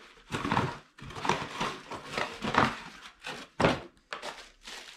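Irregular wooden knocks, clatters and scrapes as a piece of wood and hand tools are handled and set down on a workshop floor, about a dozen separate knocks.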